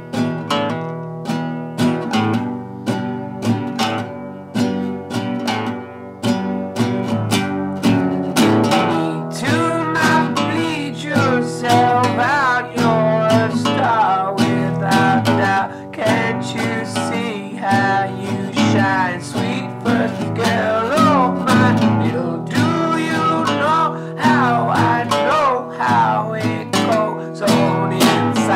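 Acoustic guitar strummed in steady strokes during an instrumental break in a song. From about eight seconds in, a higher line of notes that bend and waver in pitch plays over the chords.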